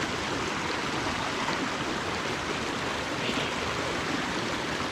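Small mountain creek running over rocks: a steady rush of flowing water.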